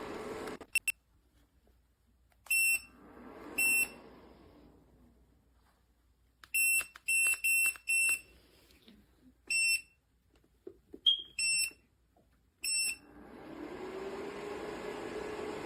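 Electric space heater's control panel beeping: about ten short, high beeps in an uneven string, as its buttons are pressed. Near the end the heater's fan starts up and settles into a steady blowing hum.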